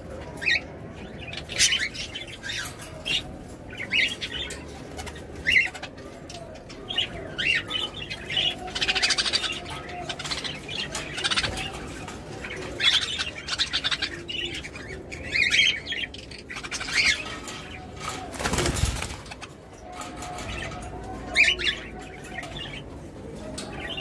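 Budgerigars chattering in a cage: many short, high chirps and warbles, overlapping one another, with wings fluttering. A brief louder rush of noise about three-quarters through.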